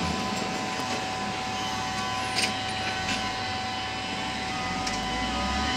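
Volvo L60F wheel loader's diesel engine running steadily, with a steady high whine and two brief clicks about two and a half and five seconds in.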